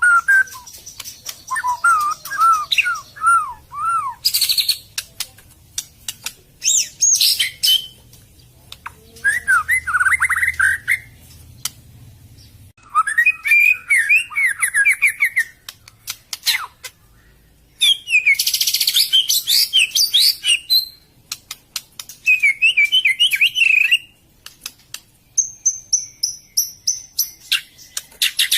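White-rumped shama (murai batu) singing a varied song: a string of short phrases, each a quick series of rising-and-falling whistled notes or a rapid trill, with a run of high thin notes near the end and sharp clicks scattered between the phrases.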